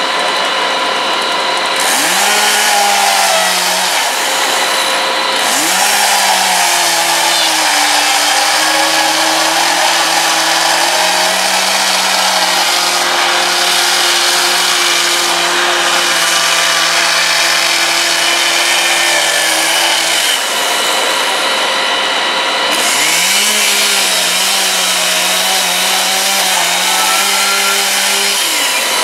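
Two-stroke chainsaw revved up and cutting into a door, its engine note sagging and wavering under load. Near twenty seconds in the engine drops back, then revs up again about three seconds later and runs on.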